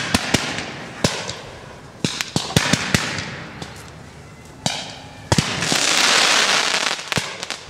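Fireworks going off: a scattered string of sharp bangs and cracks, then about six seconds in a loud hiss lasting over a second.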